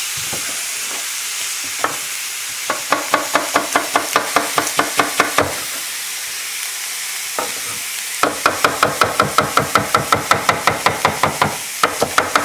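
Chef's knife chopping bell pepper on a wooden cutting board in two quick runs of about six even strokes a second, the first about three seconds in and the second from about eight seconds. Under it, the steady sizzle of tuna steaks searing in a cast-iron grill pan.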